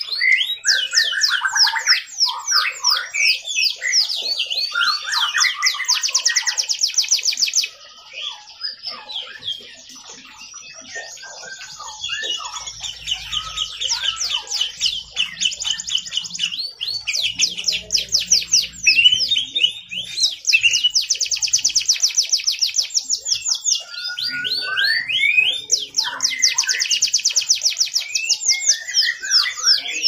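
Domestic canary singing vigorously: a long rolling song made of runs of very fast repeated trilled notes, high-pitched, with a few seconds of softer, sparser notes about eight seconds in before the rapid trills return.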